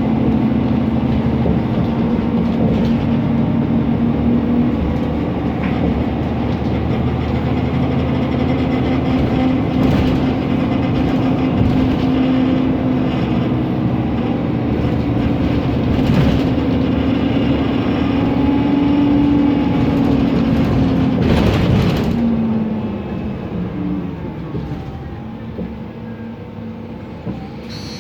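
Mercedes-Benz Conecto NGT city bus's OM 936 G CNG engine running under way, with its loud cooling fan giving a steady whine. The whine drops away and the sound quietens about 22 seconds in as the bus slows, with a few knocks and rattles along the way.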